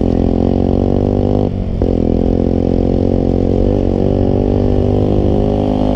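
Small motorcycle engine running steadily under throttle. About one and a half seconds in, the engine sound briefly drops away and then picks up sharply again.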